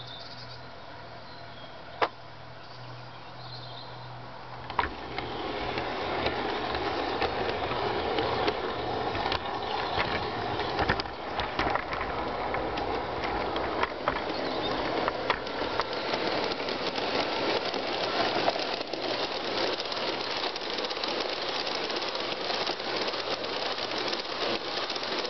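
LGB garden-scale model train rolling along outdoor track. From about five seconds in there is a steady rolling rattle with frequent short clicks; before that it is quieter, broken by one sharp click.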